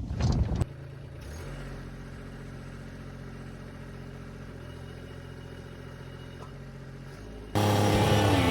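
Kubota LX2610 compact tractor's three-cylinder diesel engine running at a steady speed. Music with guitar cuts in abruptly near the end.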